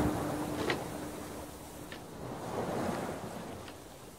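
A rushing, surf-like noise that fades out steadily, with a steady low hum that stops about two seconds in and a few faint clicks.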